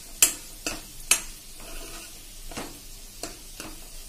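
Steel spoon stirring spiced vegetables in a black kadai, knocking and scraping against the pan about six times, over a light sizzle of the frying.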